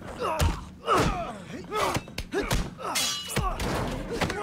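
Film fight sound effects: a rapid series of punch and body-impact hits, about five in four seconds, with short grunts from the fighters between them. About three seconds in, a crash with a brief metallic ring.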